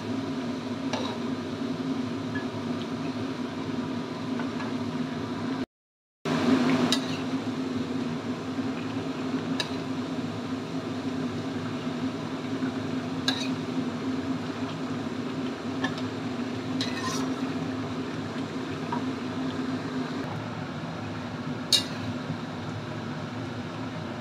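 A metal spatula stirring chicken and chicken feet simmering in broth in a wok, clinking against the pan now and then over a steady hiss and low hum. The sound cuts out briefly about six seconds in.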